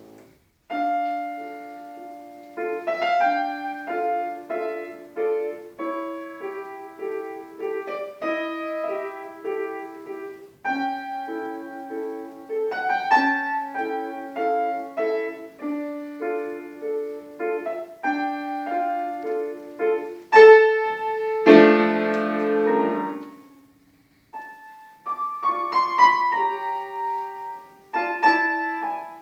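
Solo piano playing a classical piece in short phrases of notes over a repeating lower figure. It builds to a loud held chord about two-thirds of the way through, breaks off briefly, then resumes.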